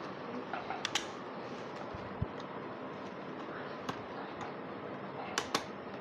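A few small sharp plastic clicks as the bottom cover of a Dell Inspiron 5567 laptop is pried loose from its clips, two in quick succession near the end, over a steady faint hiss.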